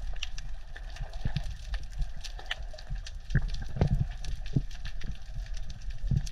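Underwater sound picked up by a diving camera: a steady low rumble of water movement with irregular sharp clicks and crackles, a few louder knocks a little past the middle.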